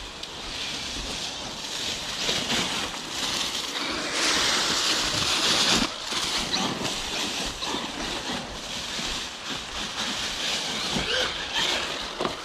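Rough crunching and rustling over dry leaves and dirt that rises and falls, loudest around the middle: a Traxxas Maxx RC monster truck driving along the trail.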